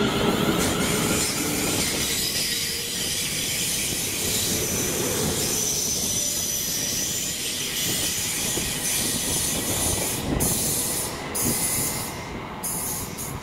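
A train running past on the track: steady wheels-on-rail noise with a high hiss and a rising whine in the first two seconds, growing quieter near the end.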